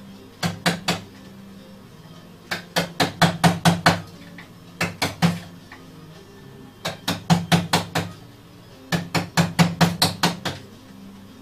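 Wooden mallet knocking on the wooden frame of a hand-built music box in five quick runs of sharp knocks, three to nine strikes each. Quiet background music plays underneath.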